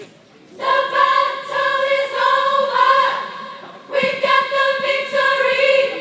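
Gospel choir singing two short phrases, the second starting about four seconds in after a brief break.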